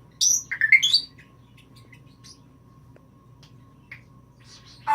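Pet parrot whistling and chirping: two quick, loud rising whistles in the first second, a few faint chirps after that, and a louder squawking call that starts right at the end.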